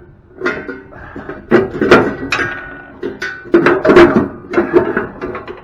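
Irregular metal clanks and knocks, about nine in a row, each ringing briefly: hand tools striking and working on the steel parts of a scrapped machine table.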